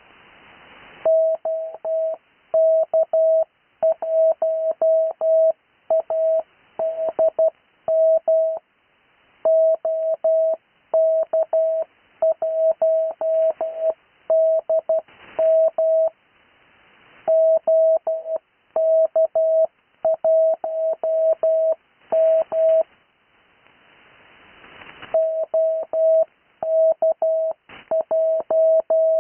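Morse code (CW) sent as a single steady tone keyed on and off in dots and dashes, spelling out amateur radio callsigns for copying practice, with each callsign repeated several times. Longer pauses separate the groups, and hiss fills the gaps.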